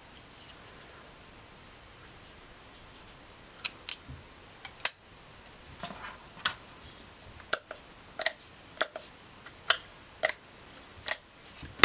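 Sharp mechanical clicks from a Snapmaker emergency stop button being handled, its red mushroom cap pressed and twisted. About a dozen irregular clicks begin about four seconds in.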